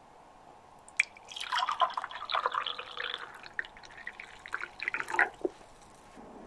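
Tea poured from a glass teapot into a ceramic mug. A sharp click about a second in, then a splashing pour lasting about four seconds that tails off into a few drips.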